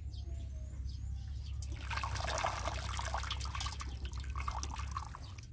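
Liquid splashing and trickling, growing louder about two seconds in and easing off near the end.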